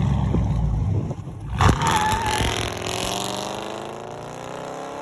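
Dodge Durango SUV's engine and exhaust running loud and low. About a second and a half in comes a sharp knock and a brief wavering squeal. Then the engine note climbs steadily as the SUV accelerates away, growing slightly fainter.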